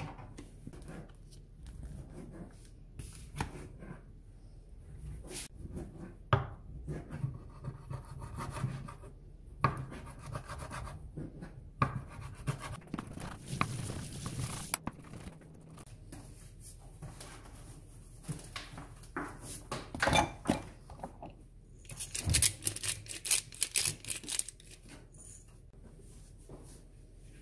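Kitchen knife cutting raw salmon fillet into cubes on a wooden chopping board: irregular knocks of the blade on the board with rubbing and scraping in between, and a busier run of knocks a little before the end.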